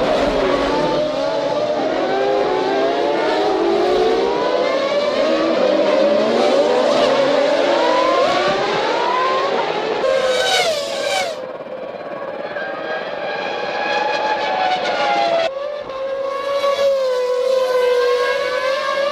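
Formula One V10 engines at racing speed, several cars at once at first, their pitch rising and falling through gear changes. The sound changes abruptly about ten, eleven and fifteen seconds in, as it cuts from one car or view to another.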